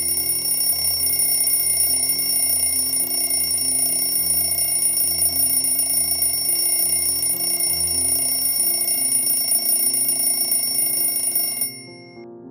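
Twin-bell mechanical alarm clock ringing continuously, a fast metallic clatter of the hammer on the bells, cut off abruptly near the end as it is switched off.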